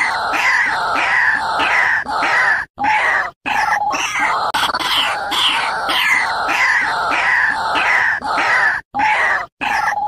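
White-breasted waterhen's loud, harsh 'ruak-ruak' calling: a fast, unbroken run of rising and falling croaking notes, several a second, with brief breaks about three seconds in and again near the end.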